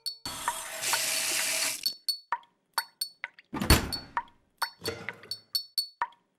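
Edited rhythm track of sound effects: a hissing rush of noise for about a second and a half near the start, then short, sharp metallic-sounding clinks at uneven spacing and a low thud a little past halfway, cut apart by dead silences.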